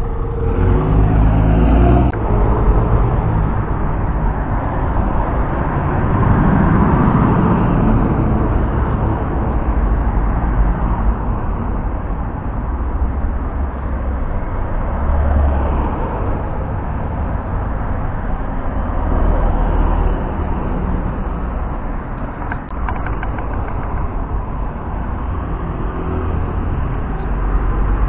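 Road traffic: double-decker buses and cars driving past close by, with engine rumble and tyre noise swelling and fading as each vehicle passes.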